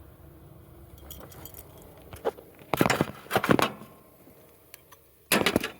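Metal sockets and hand tools clinking against each other in short bursts: one light cluster about a second in, a longer, louder run in the middle, and another near the end.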